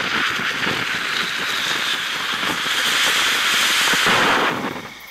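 Winda Pyro Blends 'Boomcha' coffee-cup firework fountain spraying sparks with a loud, steady hiss and scattered crackles, dying down about four and a half seconds in.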